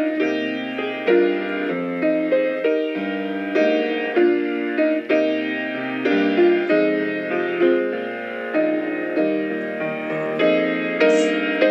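Piano music: chords and melody notes struck about once or twice a second, each left to ring and fade.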